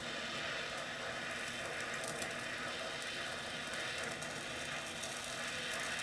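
Butane micro torch burning on a low flame with a steady hiss, heating a PL259 connector while solder is melted into it.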